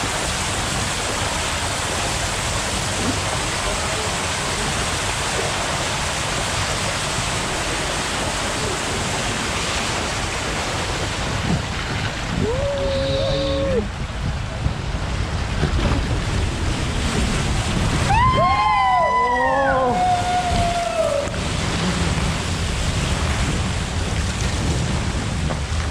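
Water rushing steadily down a water slide flume beneath an inflatable raft. One short shout comes about halfway through, then several riders yell together a few seconds later as the tube slides down.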